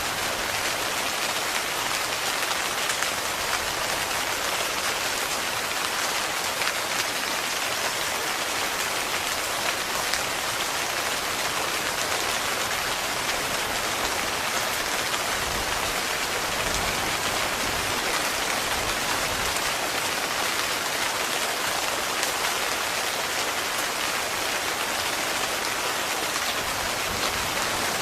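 Heavy rain falling steadily on a tent: a dense, even hiss of countless small drop hits, unchanging throughout.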